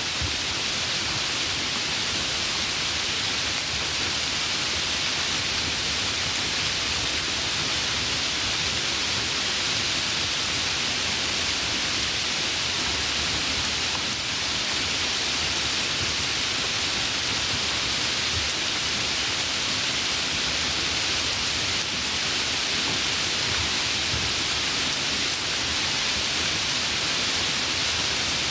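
Steady rain falling: an even, unbroken hiss with no separate drops or thunder standing out.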